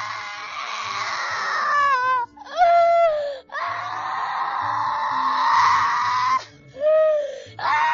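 A person's high-pitched anguished wailing and screaming: long drawn-out cries that waver in pitch, broken by short sobbing cries, as if in torment.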